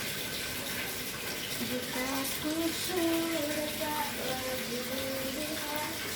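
Water running steadily from a tap, with a soft melody of held notes over it.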